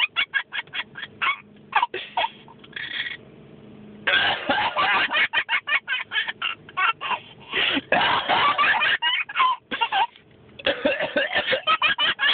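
An adult coughing and a baby laughing hard in rapid bursts, broken by two brief lulls.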